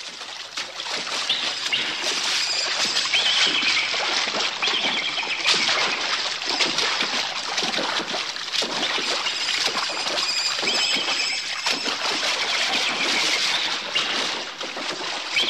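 Steady running water, splashing and trickling, with chirping bird calls over it, fading in at the start.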